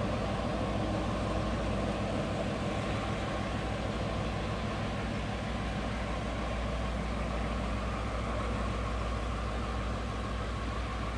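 Diesel-electric locomotive of the R100 class pulling a departing train away, its engine a steady low drone with a hiss of noise over it.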